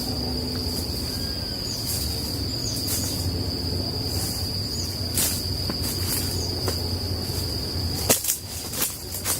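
Outdoor dawn ambience in the bush: an insect's high, steady trill runs without a break over a low rumbling background. About eight seconds in come a few sharp clicks or knocks.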